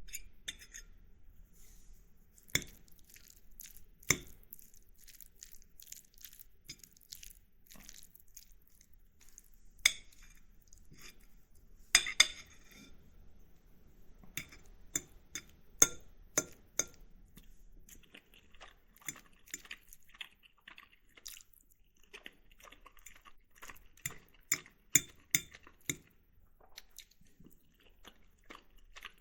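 Metal fork clinking and scraping on a ceramic plate while pasta with tuna sauce is scooped and eaten, with soft chewing between the strikes. The clinks are scattered and irregular, with a few sharper ones standing out, and grow more frequent near the end.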